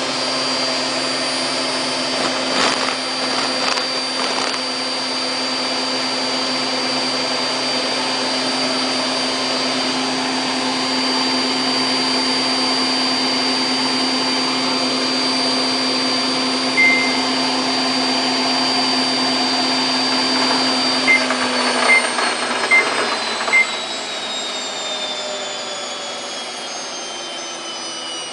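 Samsung WF8804RPA washing machine spinning at 1400 rpm in its service mode, a steady motor whine over the rush of the drum. A short beep comes about two-thirds of the way through, then four quick beeps, after which the whine falls steadily in pitch as the drum slows down.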